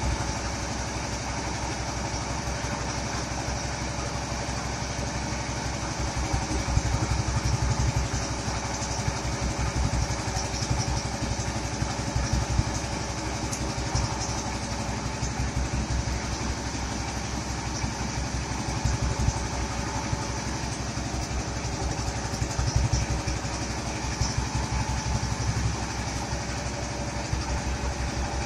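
Power rice thresher running steadily, its small engine and threshing drum going under load as rice stalks are fed in. The sound swells briefly a few times.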